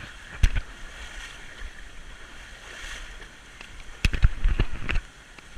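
River water rushing steadily, with sharp thumps or splashes once about half a second in and several more between about four and five seconds.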